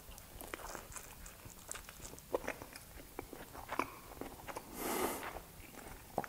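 A person biting into and chewing a mouthful of crab meat, faint wet smacks and small clicks scattered throughout. There is a short hiss about five seconds in.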